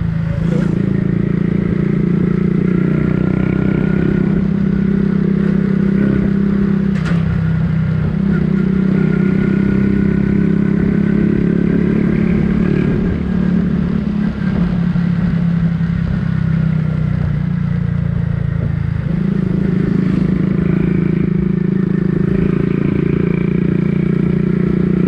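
Motorcycle engine running steadily while riding, with a faint whine above it; the engine eases off for a few seconds around the middle and picks up again later on.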